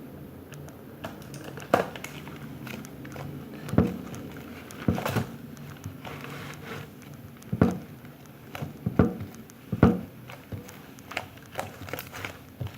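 Slime being kneaded and squished by hand while modelling clay is mixed in to make butter slime, giving irregular sticky pops and clicks.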